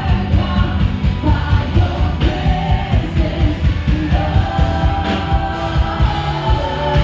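Live band music: a worship band with electric guitars and drums playing a song with a steady beat, singers' voices carrying the melody.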